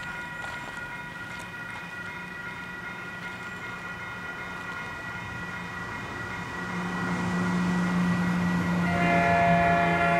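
Approaching train: a locomotive horn sounds a steady held chord while the train's rumble grows louder, and a fuller, louder horn chord comes in near the end.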